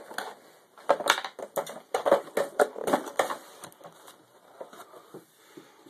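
Plastic kit packaging being handled: parts in clear plastic bags crinkling and clicking against a plastic case. A run of irregular clicks and crackles, busiest from about one to three seconds in, thinning to faint rustling after that.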